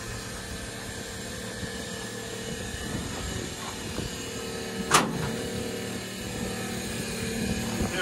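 A machine's engine or motor running steadily in the background, with a single sharp knock about five seconds in.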